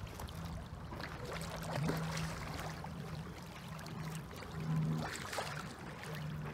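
Water splashing and sloshing as a hooked carp rolls and thrashes at the surface in the shallows, with stronger splashes about two seconds in and again near five seconds. A steady low hum runs underneath, breaking off now and then.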